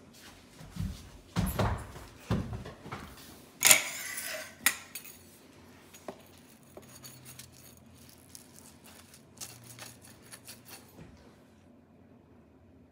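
Kitchen clatter of metal utensils and dishes, loudest in the first five seconds. After that come quieter clicks and scrapes as a metal pizza wheel is rolled through a baked pizza on a wooden cutting board.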